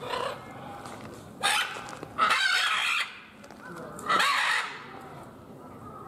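Macaws squawking: loud calls about a second and a half in, a longer one from just after two seconds to about three, and another just after four seconds.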